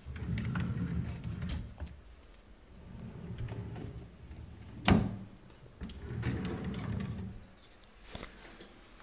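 Desk drawers sliding open and shut on their runners, with a rumbling slide three times. A sharp knock comes about five seconds in, as a drawer is pushed closed, and a few small clicks follow near the end.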